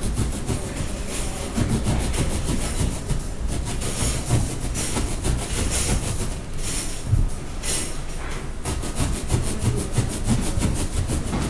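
Small serrated knife sawing down into a thick foam block with quick, continuous back-and-forth strokes, a steady rasping rhythm.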